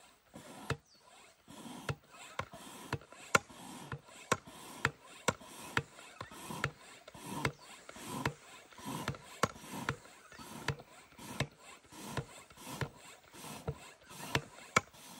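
Dometic hand pump being worked in steady strokes, about two a second, each with a sharp click and a rush of air, inflating an inflatable swag's air poles.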